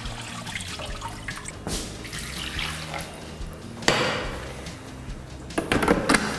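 Water splashing into a kitchen sink as the rinse water is poured out of a Thermomix mixing bowl. About four seconds in there is a knock as something is set down on the counter, and near the end a few clatters as the stainless steel mixing bowl is seated back in the Thermomix.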